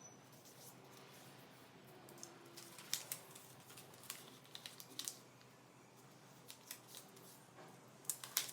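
A square sheet of origami paper being folded in half and creased, giving faint, scattered sharp crackles and rustles of the paper.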